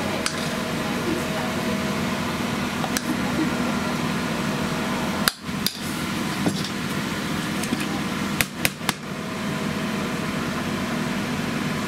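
A few sharp knocks and clicks, three of them close together about eight to nine seconds in, over a steady mechanical hum.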